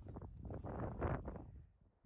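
Wind buffeting the microphone in uneven gusts, dying away just before the end.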